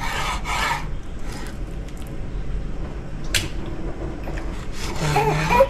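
Chef's knife slicing through a raw salmon fillet on a wooden cutting board, with one sharp knock of the blade on the board a little past three seconds in.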